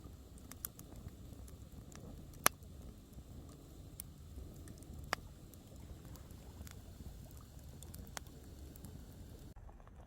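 Wood campfire burning with a low rush, and scattered sharp pops and crackles from the burning wood, the loudest about two and a half seconds in.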